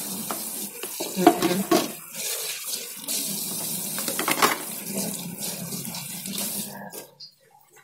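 Tap water running into a stainless steel sink while a plastic bowl and then a glass are rinsed by hand, with a few knocks and splashes. The water stops near the end.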